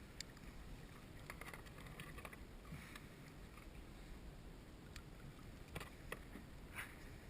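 Small boat on the water: a faint steady low rumble with scattered soft knocks and clicks, several close together near the end.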